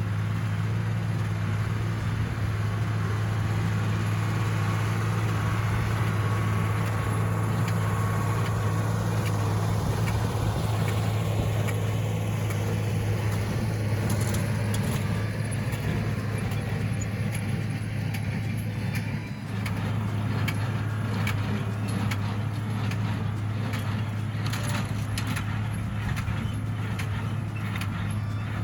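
Cockshutt 1650 tractor engine running steadily at a constant speed. From about halfway through, irregular clicks and rattles join in.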